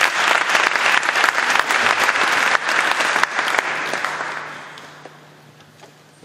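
Audience applauding in a concert hall, a dense patter of many hands that fades out about four to five seconds in.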